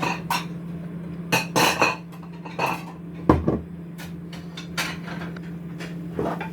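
Kitchen utensils, pan and dishes clinking and clattering in a string of irregular knocks, the loudest about three seconds in, over a steady low hum.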